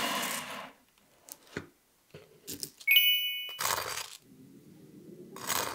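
Butter knife scraping across crisp toast in several short scrapes, with a few light taps. A bright chime rings once about three seconds in.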